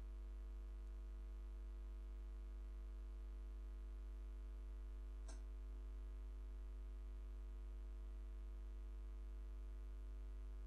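Steady electrical mains hum with evenly spaced overtones, and a single short click about five seconds in.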